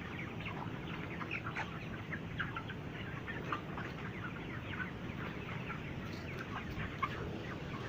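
A flock of 32-day-old broiler chickens clucking and calling, many short calls overlapping in a continuous chatter over a steady low hum.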